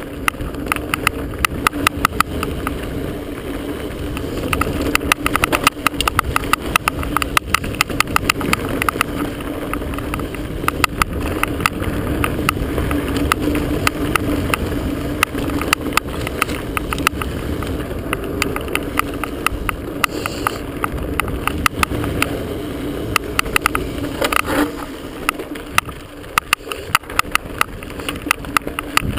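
Mountain bike descending a dirt singletrack at speed: a steady rumble of tyres and wind, with constant irregular rattling clicks from the chest-mounted camera banging on its mount.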